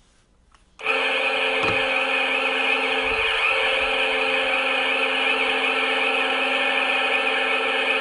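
A loud, steady horn blast with several pitches sounding together. It starts about a second in, holds level for about seven seconds and fades out at the end.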